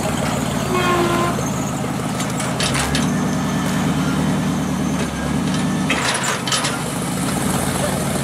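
Engine of a lowered 1940s Ford pickup truck running at idle. Its note changes from about three seconds in and settles back around six seconds, with a short clatter at each change.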